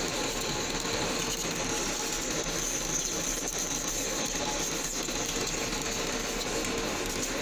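Large lathe running steadily, its chuck and gearing turning while the cutting tool turns down the bearing seat on a steel crusher shaft, with a steady high whine over the machine noise.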